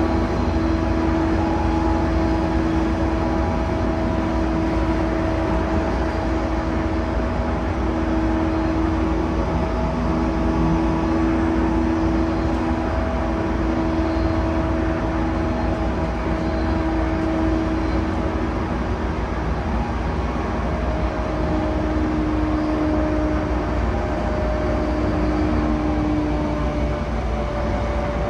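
Running noise inside an E235-1000 series motor car with Mitsubishi full-SiC VVVF control at speed: a steady low rumble of wheels on rail under a steady traction-motor hum. The hum's pitch drops slightly about two-thirds of the way through.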